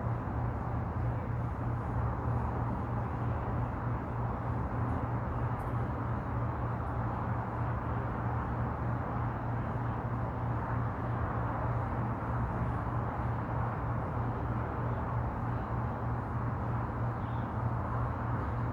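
Steady outdoor background noise: an even rushing hiss over a constant low hum, with no distinct events.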